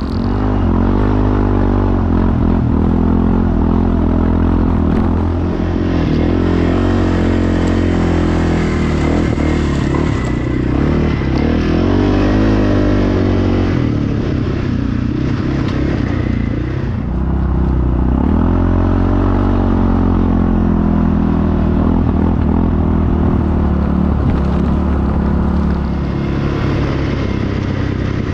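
ATV engine running under changing throttle on a trail, its pitch rising and falling again and again, with a brief easing off about 17 seconds in.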